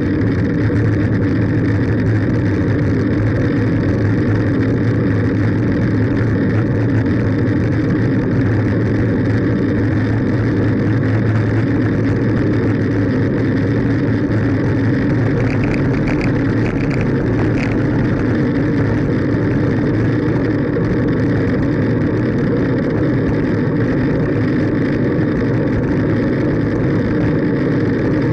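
Steady rush of wind and road rumble picked up by a bike-mounted camera as a bicycle rolls along an asphalt road. A few faint, brief high chirps sound about halfway through.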